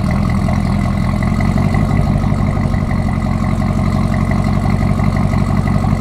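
2018 Camaro ZL1's supercharged 6.2-litre LT4 V8 idling steadily on a warm engine, through an exhaust with the secondary catalytic converters deleted and replaced by 3-inch pipes.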